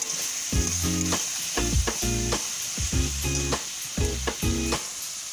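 Food sizzling as it fries in hot oil in a pan, with short clicks from a utensil stirring it.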